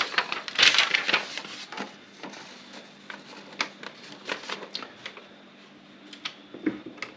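Clicks and knocks of the plastic cover of an Olympia SG3 typewriter being pushed back onto its silicone fittings. The fittings work loose from vibration and let the cover make an annoying sound. A dense clatter comes about a second in, then sparser single clicks.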